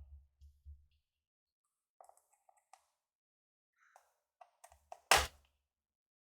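Small scattered clicks and taps of hands handling laptop parts and small tools, then one loud knock about five seconds in.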